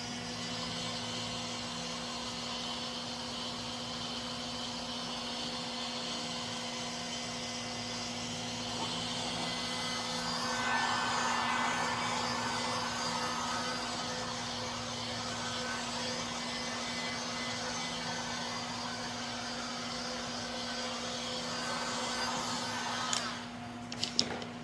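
A steady rushing hiss that runs about 23 seconds, swells slightly near the middle and then cuts off, followed by a few sharp clicks.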